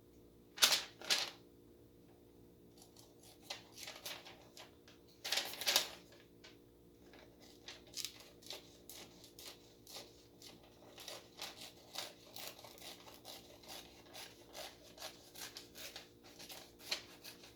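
Small scissors of a multi-tool pocket knife snipping through paper. A few louder snips come about a second in and again around five seconds in, followed by a long run of quick small cuts.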